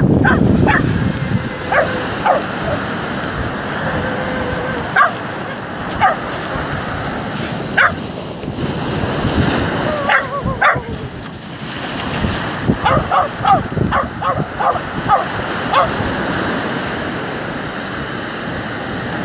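Small white spitz-type dog barking at the incoming waves: single barks spread through, and a quick run of barks about two-thirds of the way in, over the steady wash of breaking surf.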